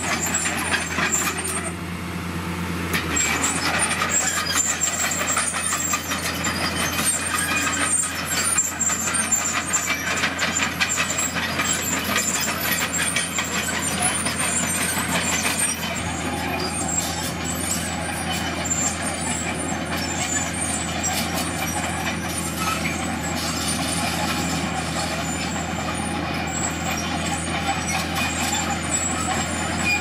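Komatsu D41PX crawler bulldozer's diesel engine running steadily under load while its blade pushes crushed stone, with a dense stream of small clanks and knocks from the tracks and rocks.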